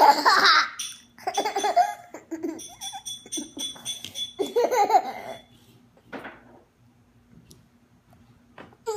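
A toddler of nearly two laughs in several short fits while being tickled, then goes quiet for a few seconds.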